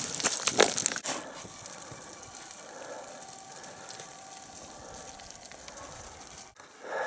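Boots scuffing and crunching on dry, rocky ground for about the first second, then a faint, steady hiss of outdoor background.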